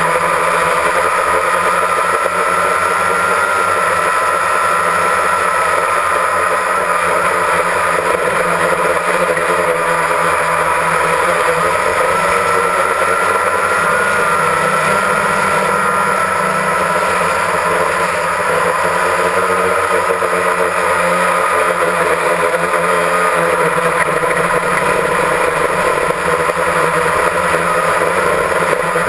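Multirotor drone's motors and propellers whining steadily, heard close up from the aircraft itself, the pitch wavering slightly as it flies.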